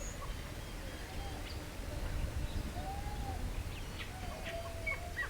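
Wild birds calling: several low, arched cooing notes and scattered short chirps, over a steady low rumble.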